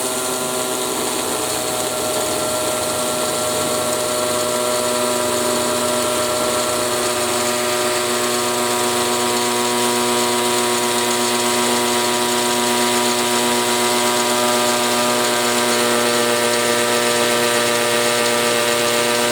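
Makita XPH07 (DHP481) 18 V brushless hammer drill running steadily in hammer mode on low speed, driving a 16 mm masonry bit into a soft cinder block.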